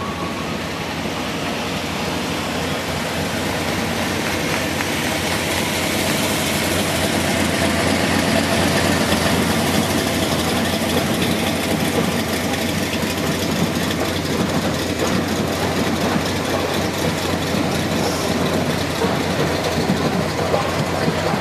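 Engine of a large vehicle running steadily, growing louder over the first several seconds as it nears, then holding.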